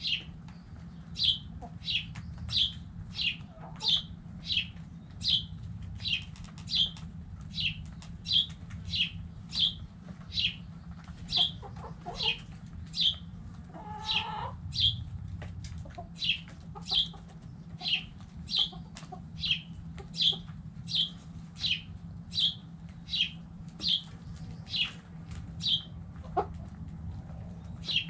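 A small bird chirping over and over, one short high note about every two-thirds of a second, pausing shortly before the end. A chicken gives a brief lower call about halfway through, over a steady low hum.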